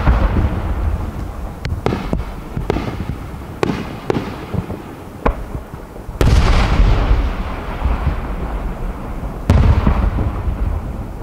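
Aerial firework shells bursting: three heavy booms, one right at the start, one about six seconds in and one near the end, each followed by a long echo, with several sharper bangs in between.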